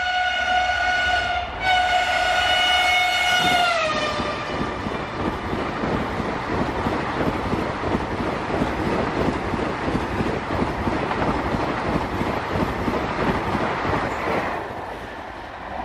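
Vande Bharat Express trainset sounding its horn in two blasts, the second gliding down in pitch about four seconds in as the train passes. It is followed by the steady rushing rattle of the coaches speeding past close by, which eases off near the end.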